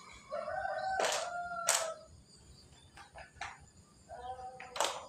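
A rooster crows: one long held call starting just after the start and lasting nearly two seconds, then a shorter call near the end. A few sharp clicks sound over it.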